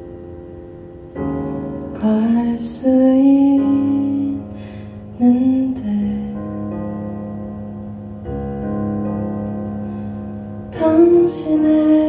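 A woman sings a slow ballad, accompanying herself on a Kurzweil SP2X stage piano. The sung phrases come and go over sustained piano chords, with a long held note in the middle.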